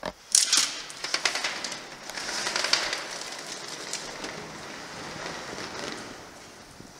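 Roller-skate wheels rolling on concrete: a gritty, crackling rumble, with a few sharp clicks about half a second in, swelling around two to three seconds in and fading toward the end.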